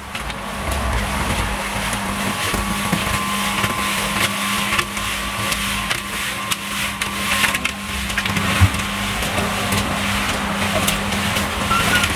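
Small portable cement mixer running with a steady hum, its drum tipped to pour wet concrete into a metal wheelbarrow, with scattered scraping and knocking.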